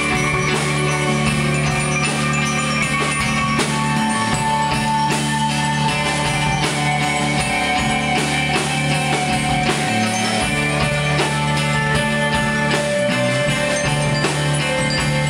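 Live rock band playing: electric guitars and bass guitar over a steady drum-kit beat.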